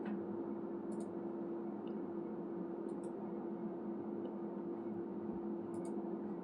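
Steady background hum with two fixed tones over a faint hiss, broken by a few faint, short clicks about one, three and six seconds in.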